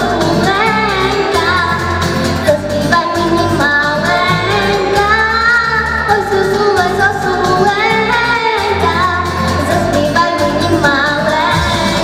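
A young girl singing a melody with long held notes into a handheld microphone, over a pop-style backing track with a steady bass line.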